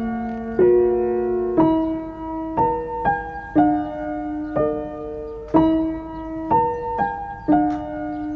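Gentle solo piano music: single notes and chords struck about once a second, each ringing out and fading.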